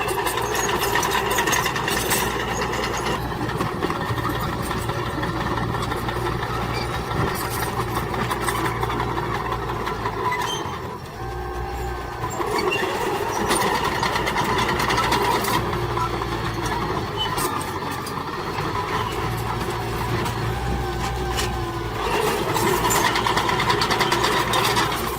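Diesel engine of heavy earthmoving machinery running steadily under load, with scattered metallic clanks and rattles, briefly easing off about eleven seconds in.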